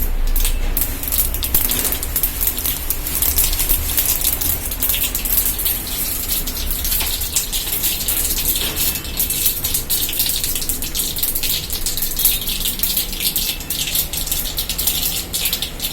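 Mustard seeds spluttering in hot oil in a pan: a dense, steady crackle of small pops and sizzling. A low rumble runs underneath, stronger in the first half.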